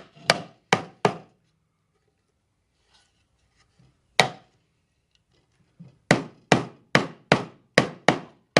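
Hammer tapping on the joints of a glued six-sided wooden box to drive them closed: three sharp knocks at the start, a single knock about four seconds in, then a steady run of knocks about two a second near the end.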